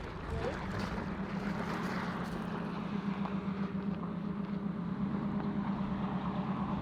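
A vehicle engine running steadily at a constant pitch, with a rushing noise over it.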